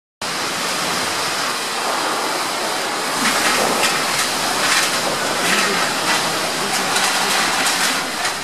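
Typhoon wind and rain: a loud, steady rushing noise that starts suddenly, with stronger gusts surging repeatedly from about three seconds in.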